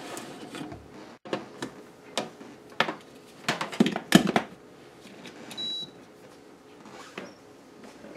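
Hard plastic clicks and knocks as a sous vide immersion circulator is set into a clear plastic water container and its lid fitted over it, a cluster of louder knocks near four seconds in. About five and a half seconds in comes a single short electronic beep.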